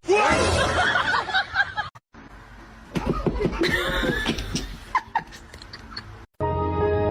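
People laughing and snickering in two short home-video clips, cut apart about two seconds in. Background music with held tones starts near the end.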